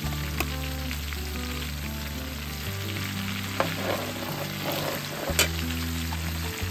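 Garlic and chopped chili frying in hot oil in a wok, a steady crackling sizzle, stirred with a metal ladle that clicks against the pan a few times, most sharply about five seconds in. Low steady tones that change pitch every couple of seconds run underneath.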